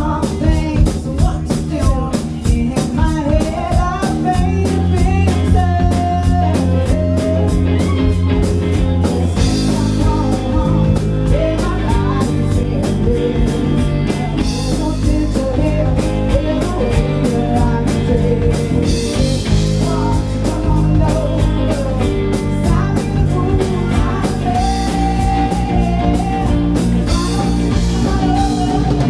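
Live blues-rock band playing: electric guitars, bass guitar and drum kit, with a woman singing.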